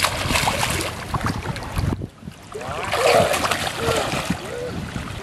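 Water splashing as a small child swims overarm strokes through shallow lake water, his arms and kicks churning the surface.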